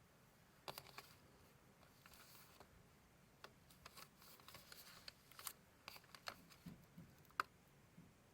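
Paper and card being handled, with faint rustles and small clicks scattered throughout and one sharper click a little after seven seconds in.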